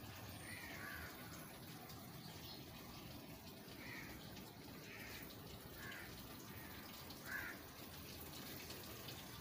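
Faint steady outdoor background hiss with about five short bird calls scattered through, one of them louder about seven seconds in.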